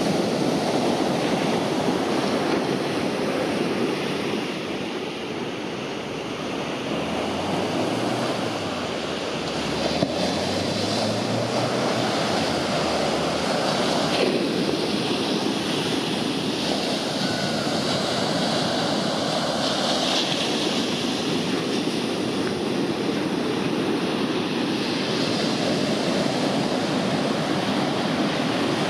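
Ocean surf breaking on a sandy beach: a continuous rush of waves and whitewater, easing briefly a few seconds in before building again.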